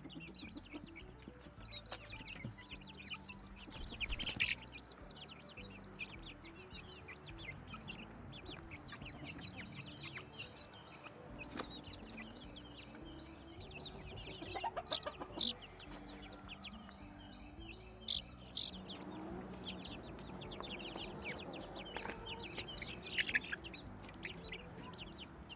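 A group of backyard chicks peeping and cheeping continuously in short, high calls.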